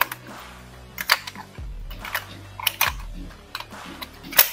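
Sharp plastic clicks and taps as AA batteries are pressed into the battery compartment of a plastic Hulkbuster toy figure and its battery cover is pushed shut, the loudest snap near the end.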